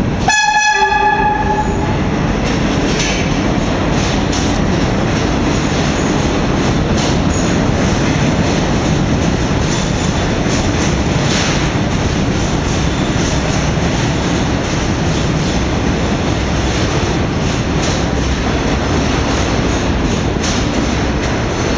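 A Redbird subway trash train sounds a short horn blast just as it comes in, then runs through the station with its wheels rumbling and clattering on the rails.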